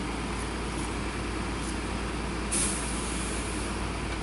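Heavy diesel truck engine idling with a steady low rumble, and a short burst of air-brake hiss about two and a half seconds in.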